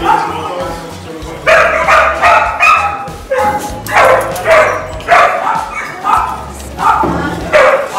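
Dogs in kennel cages barking over and over, loud short barks coming every half second to a second, over background music.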